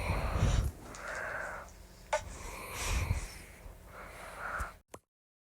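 Breathy, wheezy huffing of an overstimulated baby, several breaths in a row with low rumbles on the microphone. There is a sharp click about two seconds in, and the sound cuts off abruptly near the end.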